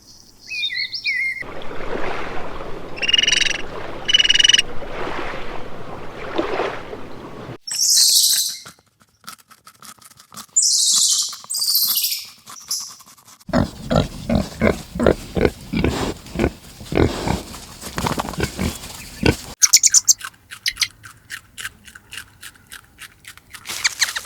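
A run of different farm animal calls, one after another. High bird chirps and calls come first. About halfway through comes a stretch of quick, low rhythmic sounds, followed by fast ticking near the end.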